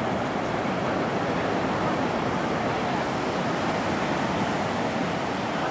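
Surf washing on a beach: a steady, even rush of waves.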